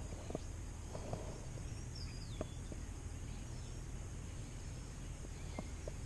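Quiet outdoor ambience: a steady high hum of insects over a low rumble, with one short falling bird call about two seconds in and a few faint clicks.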